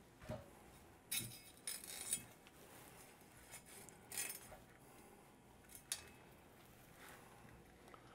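A handful of short, light clinks and rustles, spaced irregularly, from small potatoes, their bag and a chef's knife being handled on a kitchen counter.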